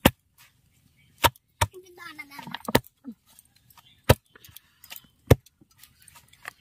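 Hands slapping and pounding a freshly fried paratha on a wooden board to crush it into flaky layers for petai paratha. There are six sharp slaps at irregular spacing, the first right at the start.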